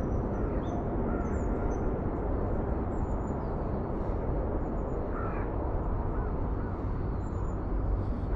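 Steady low outdoor rumble with a few short bird calls, one about a second in and one around five seconds in, and faint high chirps scattered through it.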